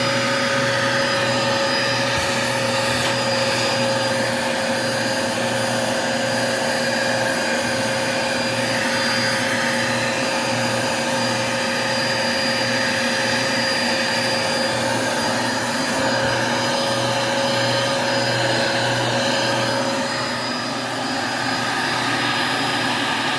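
Vacuum cleaner running steadily over carpet, a constant motor whine holding one pitch, dipping slightly in loudness near the end.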